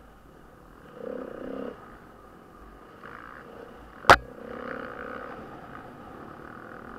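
Off-road motorcycle engine running as the bike is ridden over a rough dirt track, briefly louder about a second in. A single sharp knock a little after four seconds is the loudest sound.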